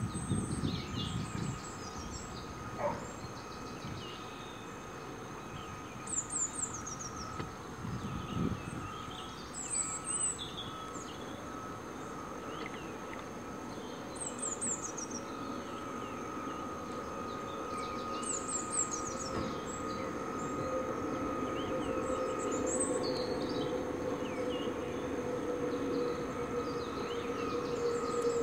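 Small electric motor of a 1:18 scale RC model Solent-class lifeboat whining steadily, growing louder as the boat comes closer across the water. A songbird repeats a short descending trill about every four seconds, and wind buffets the microphone briefly at the start.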